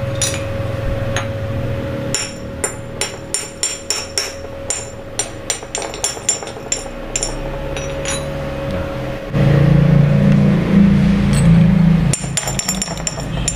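Hand tool tapping and scraping slag off a fresh stick-weld bead on a steel sprocket: a string of sharp metallic clicks with a light ring, about two or three a second. A louder low rumble takes over for a few seconds after the middle, and the taps resume near the end.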